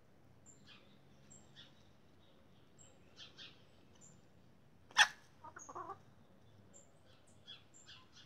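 Chickens pecking feed off a concrete floor, their beaks tapping faintly, with a sharp click about five seconds in followed by a short cluck. Faint high peeps come now and then.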